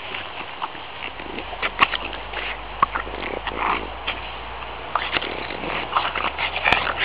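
A French bulldog rolling and wriggling on its back in long grass: irregular rustling of the grass mixed with short sniffing and snuffling breaths.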